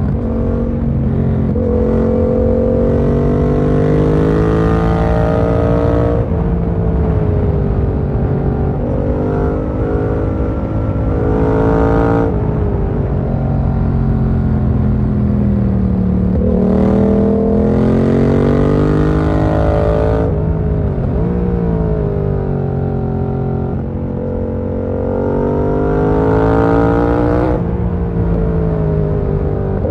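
Yamaha MT-07's 689 cc parallel-twin engine under way, its revs climbing and then dropping sharply several times as the throttle is opened and closed.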